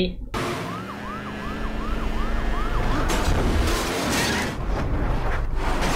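Emergency vehicle siren in a film's soundtrack, yelping in quick rising-and-falling whoops, about three a second, over street and traffic noise. Near the end it slides down in one long falling wail.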